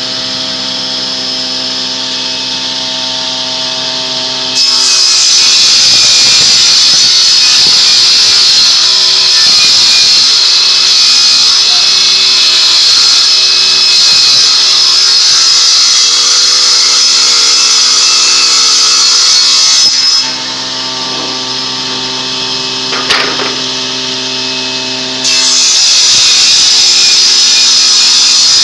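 A woodworking power saw running with a steady motor hum, then cutting into wood in two long passes. Each cut is a loud, high-pitched rushing noise, and the free-running hum comes back between the cuts.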